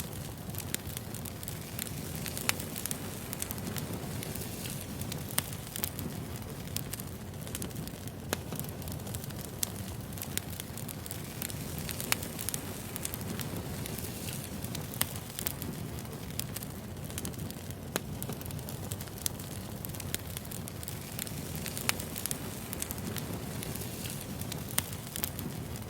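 Wood fire burning: a steady low rumble of flames with irregular sharp crackles and pops from the burning logs, several stronger pops standing out.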